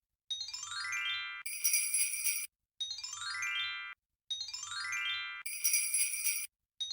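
Intro sound effect: a quick rising run of tinkling notes followed by a bright, high shimmering chime, repeated three times with short gaps between, a fourth run starting near the end.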